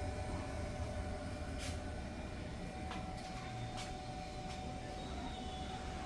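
Electric power steering rack running, a steady low rumble with a constant whine that grows stronger about halfway through, and a few sharp clicks.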